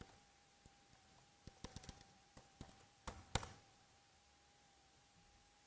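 Faint typing on a computer keyboard: a run of scattered key clicks over the first three and a half seconds, the last two the loudest, with a faint steady hum underneath.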